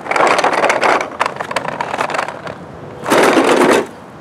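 Furniture dolly's hard casters rolling and clattering across a grid-pattern plastic curb ramp and onto an aluminum curb ramp. There are two loud rolling runs, one at the start and one about three seconds in, with a rattle of rapid clicks between.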